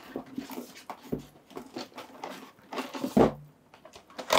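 Handling and unpacking of a toy figure's box: light clicks, taps and rustles of the packaging, with a louder knock a little after three seconds and another near the end.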